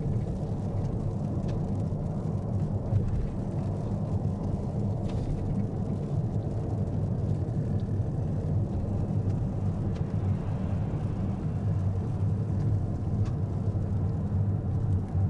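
Steady low road rumble heard inside the cabin of a Mitsubishi Outlander PHEV cruising on a rain-wet expressway.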